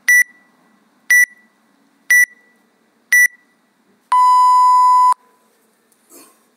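WODProof workout timer app counting down: four short high beeps a second apart, then one long lower beep about a second long that signals the start of the workout.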